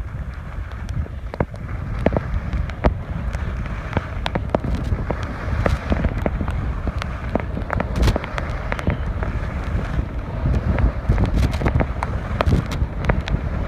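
Wind buffeting a phone microphone while skiing downhill, over the hiss and scrape of skis carving on packed, groomed snow, with frequent sharp crackles and pops.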